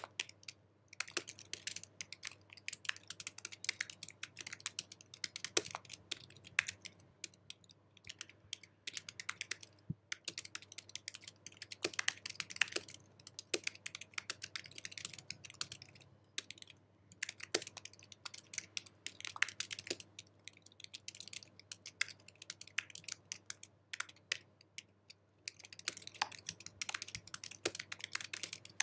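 Typing on an Apple keyboard: quick runs of light key clicks, with a few short pauses between runs.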